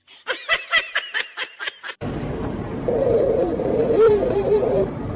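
A person laughing in quick pulses for about two seconds. It is followed by an abrupt change to a steady rushing noise with a wavering mid-pitched tone over it.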